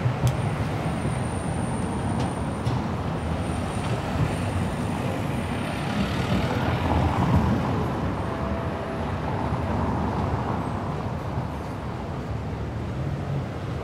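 City road traffic: vehicle engines running and passing with a steady low rumble and road noise.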